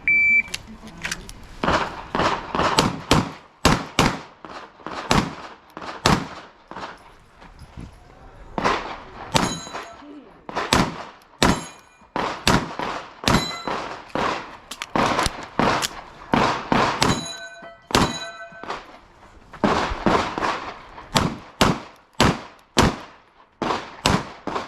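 A shot-timer beep, then a long string of pistol shots fired in quick pairs and groups with short pauses between, as in an IDPA course of fire. Several hits set steel targets ringing.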